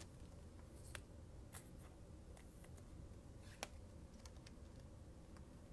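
Faint, scattered clicks and light scrapes of trading cards being flipped through by hand, the sharpest about three and a half seconds in, over a low steady hum.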